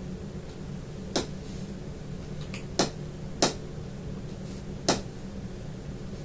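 Four sharp plastic clicks, spaced unevenly, from a Midland HH54 handheld weather radio being handled and pressed while trying to get it to power up, over a steady low hum.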